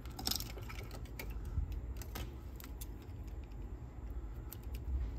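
Small irregular clicks and scrapes of a small tool and fingers working at a plastic retaining ring and gear on a cassette deck's tape transport mechanism, prying the ring off its shaft.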